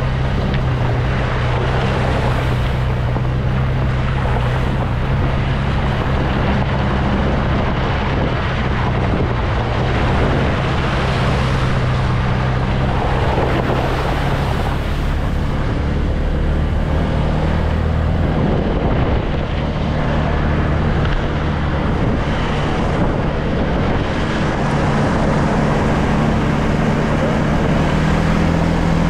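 ATV engine running steadily as the machine is ridden, with wind buffeting the microphone; the engine note rises a little near the end.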